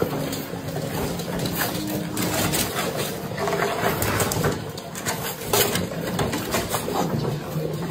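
A litter of puppies whimpering and squeaking in short pitched cries amid steady scrabbling and clicking of paws against a plastic playpen.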